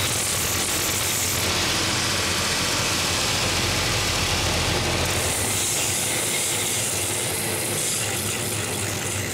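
A last-sanding machine's coarse 24-grit belt grinding a wooden shoe last: a steady motor hum under a rasping hiss of wood being abraded. The hiss eases for a few seconds after about a second and a half, then comes back strongly as the last is pressed harder against the belt.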